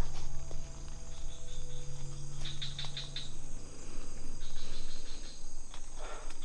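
Crickets chirping in short rapid trills, a few times over, above a low steady hum that stops about five seconds in.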